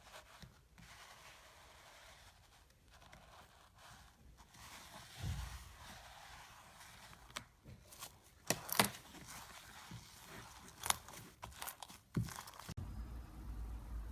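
Slime being handled, making faint crackling with several sharper crackling pops in the second half.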